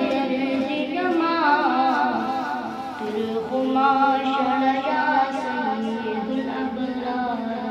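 A boy singing a naat solo and unaccompanied, in long drawn-out notes that waver and glide in pitch.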